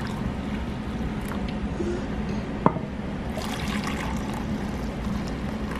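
Coffee running steadily into a cup, over a low steady hum, with one short sharp tap about halfway through.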